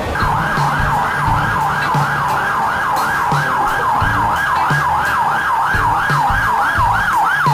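Emergency vehicle siren in a fast yelp, rising and falling about three times a second. It cuts in suddenly over background music with a steady beat.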